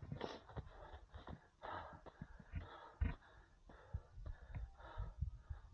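A runner's breathing and footfalls while running on a sandy forest trail; the footfalls come as low thuds about two or three times a second, with breaths between them.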